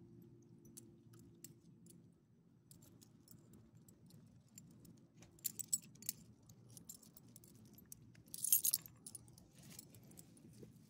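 Metal tags on a dog's collar jingling as the dog shakes and gets up, with scattered light clinks and two louder bursts of jingling, about five and a half and eight and a half seconds in, the second the loudest.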